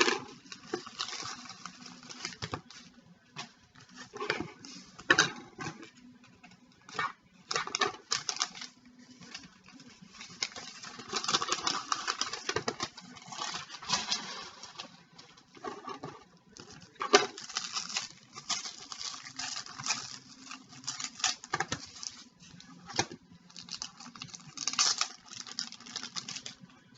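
Trading cards and pack wrappers being handled: irregular crinkling, rustling and light tapping in short bursts, as a pack of hockey cards is opened and the cards are sorted through.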